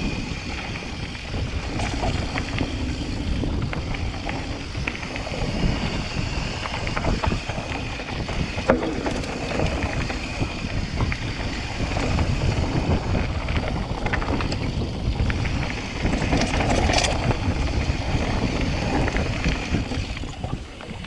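Wind buffeting the microphone over the rumble and rattle of a Trek Fuel mountain bike riding fast down a dirt trail, with scattered knocks from bumps. The sharpest knock comes about nine seconds in.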